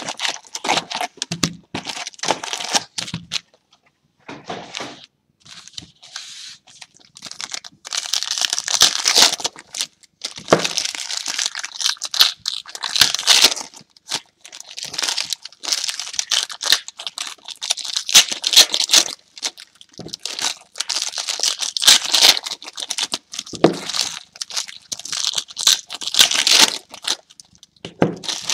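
Foil wrappers of trading-card packs being torn open and crumpled by hand, in irregular bursts of crinkling with short pauses, as the cards inside are handled.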